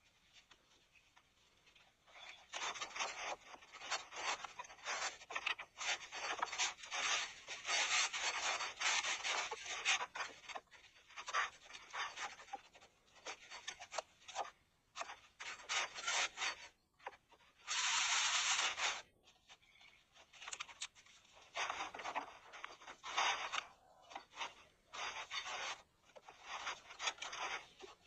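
Irregular rubbing and scraping noises in stop-start clusters, starting about two seconds in, with one longer unbroken scrape a little past the middle.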